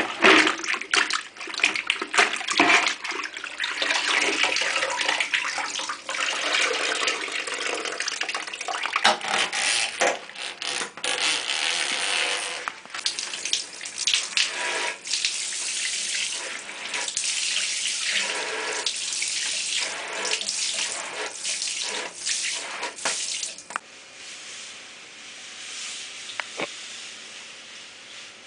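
Water running and splashing unevenly, easing off near the end.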